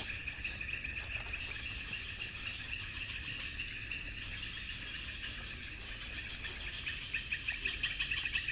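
A chorus of night insects: crickets and other insects trilling steadily, with one pulsing call at about two beats a second over a fast high trill that swells near the end.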